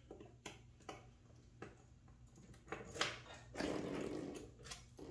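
Faint handling noises of a motorcycle seat being unlatched and lifted off: several light clicks and knocks, and a longer scuffing sound about three and a half seconds in.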